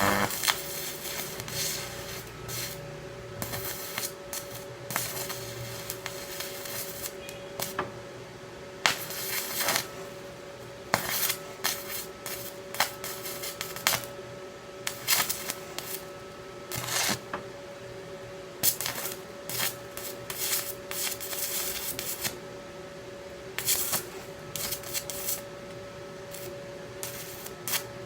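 Stick-welding arc crackling and sizzling in short, irregular stop-start bursts as the electrode rod melts in to fill a small hole in thin metal, over a steady hum.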